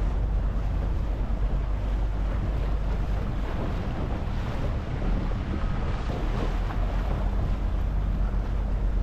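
A small tour boat's motor running steadily, with wind buffeting the microphone and sea water washing around the hull.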